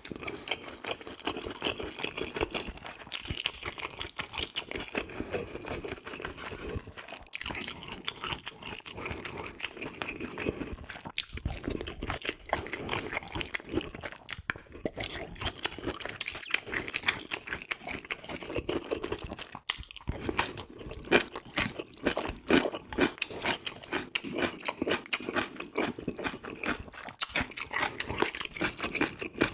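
Close-miked eating: continuous crunchy chewing and biting, with many small crackles and a few brief pauses.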